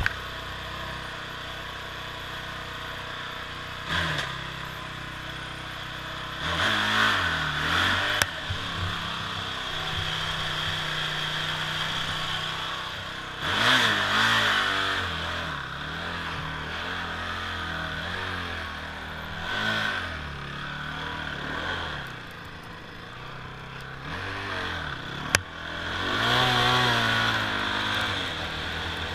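Honda TRX450R ATV's single-cylinder four-stroke engine idling with a series of quick throttle blips that rise and fall. Two sharp clicks come about 8 and 25 seconds in. Near the end it rises into a longer run as the quad rides off.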